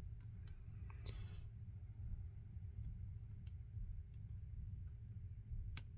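Faint, sparse clicks of a pick and tension wrench working the pins of a vintage Elzett Tutius pin-tumbler padlock. A few small clicks come in the first second, then one or two more spread out, the last near the end.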